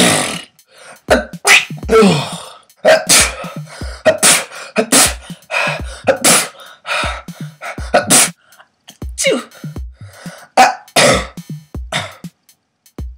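A man performing a quick run of acted sneezes in different styles, about a dozen short bursts with brief gaps, some closer to coughs or throat-clearing, stopping a little before the end. Under them, background music with a low drum beat about once a second.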